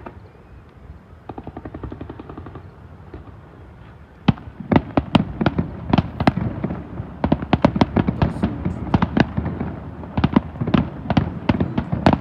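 Fireworks display shells bursting in a rapid, irregular series of booms and cracks, starting about four seconds in, each with an echo trailing after. Before that, a quieter fast rhythmic rattle.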